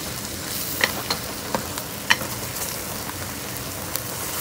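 Stingray and water spinach frying in a pan with a steady sizzle, while a utensil stirring the food clinks sharply against the pan about five times.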